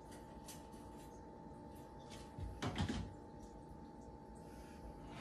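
Quiet kitchen with a steady faint hum, and a brief clatter of knocks about two and a half seconds in, as from a container or utensil being handled at the counter.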